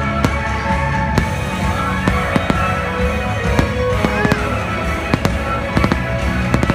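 Aerial firework shells bursting overhead, with repeated sharp bangs and crackle throughout. They sound over the fireworks show's music playing steadily.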